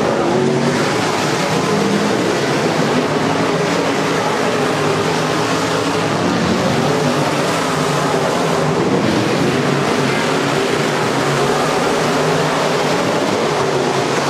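A pack of IMCA Modified dirt-track race cars' V8 engines running hard under racing, a loud, unbroken mix of several engines whose pitches shift as the cars pass.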